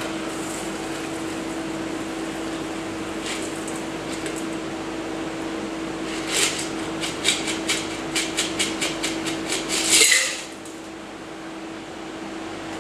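Cocktail double-strained from a metal shaker through a Hawthorne strainer and a tea strainer into a glass, over a steady hum. From about halfway there is a run of light metal clinks and taps, a few a second, ending in a brief louder rattle near the end, after which the hum drops.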